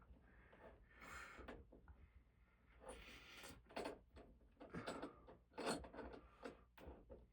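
Screws being threaded into a wooden ceiling stud: faint, irregular scraping and creaking as the threads bite into the wood. It is hard going, the screws turning stiffly.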